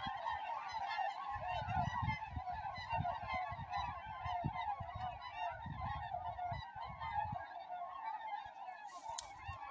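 A large flock of white geese calling together as many take flight: a dense, unbroken chorus of overlapping honks, with intermittent low rumbling underneath.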